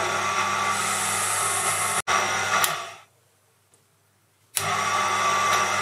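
Proxxon PD 250/e benchtop lathe running while a carbide insert takes a facing cut across the end of a stainless steel bar, heard sped up with the 4x footage: a steady motor hum with cutting hiss. It cuts off abruptly about two seconds in, fades to silence, then starts again suddenly about four and a half seconds in.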